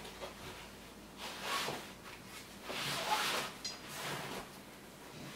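Soft rustling and handling noise from assembling a bassinet: poles worked into its fabric sleeves, with paper rustling. Two longer rustles come about one and a half and three seconds in, with a small click just after the second.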